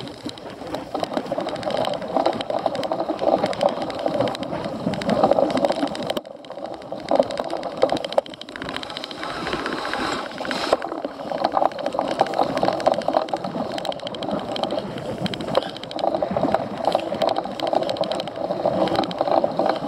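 Riding noise of a cyclocross bike at race speed: tyres and frame rattling over rough off-road ground with air rushing over the microphone. The noise eases briefly about six seconds in.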